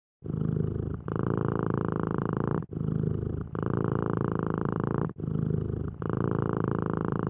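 Domestic cat purring: a continuous rumble broken by a brief pause every second or so, the phases alternating longer and shorter.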